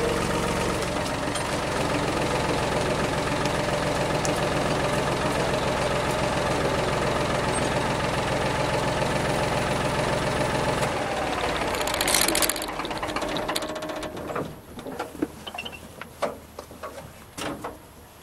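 David Brown tractor engine running steadily, then shut off about eleven seconds in and dying away over the next few seconds, with a short loud rush as it stops. Afterwards only scattered light clicks and knocks are heard.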